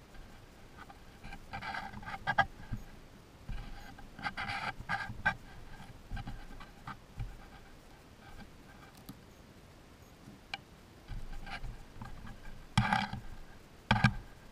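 Young striped skunks scratching and rustling in dry wood-chip mulch close to the camera: short clusters of crackly scratches a few seconds apart, the loudest near the end.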